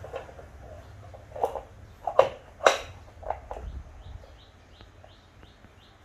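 A few sharp knocks and clatters in the first half, from a French Bulldog puppy pushing and biting a green plastic toy on a laminate floor. Then faint, short, high chirps from a small bird, about three a second.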